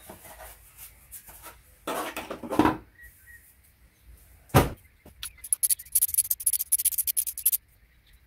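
Hand-work noises from taking a motorcycle apart: a short scraping rustle, one sharp knock, then about two seconds of rapid, high-pitched clicking.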